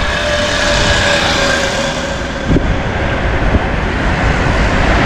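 Wind rushing over the microphone of a camera on a moving bicycle, with the steady noise of street traffic; a passing motor vehicle's faint drone fades out during the first two seconds.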